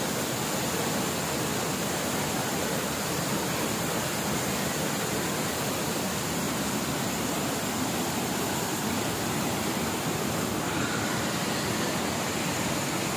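Water rushing steadily over the rocks of a shallow stream.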